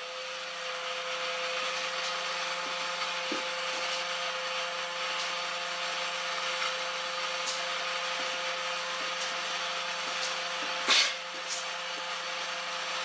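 Small electric motor of an H0 model locomotive running with a steady whine, with a sharp click about 11 seconds in.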